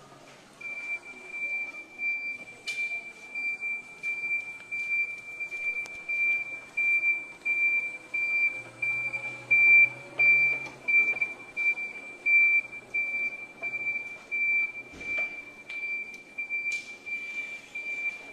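Toyota stand-on electric reach truck's warning beeper sounding a steady high-pitched beep about twice a second while the truck is driven, with a couple of sharp clicks.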